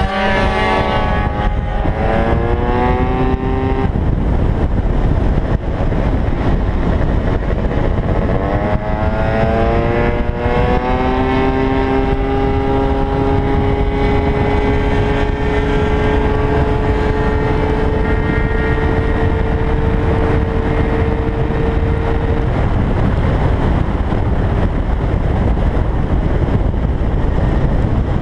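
Gilera Runner FX scooter's two-stroke engine, enlarged to 172 cc, pulling at full throttle with wind rushing over the microphone: the engine pitch rises twice as it accelerates out of corners, then holds one steady high note for about ten seconds, and falls away near the end, leaving mostly wind rush.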